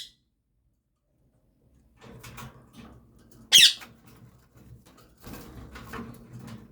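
Indian ringneck parrot giving one short, sharp, high screech about three and a half seconds in, amid faint clicking and rustling from feeding. The first two seconds are silent.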